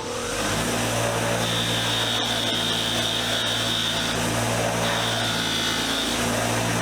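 Motor-driven wire wheel running steadily, with a higher scraping sound as steel sockets are held against the wire brush to strip off rust. The scraping comes in about a second and a half in and breaks off twice.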